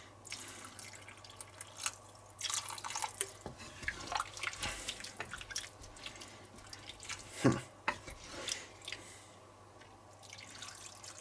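Water poured in short spells from a jug into a cast-iron Dutch oven of stew, splashing and trickling, to make the stew saucier. Between pours a wooden spoon stirs through the chunks, with one louder knock about two-thirds of the way in.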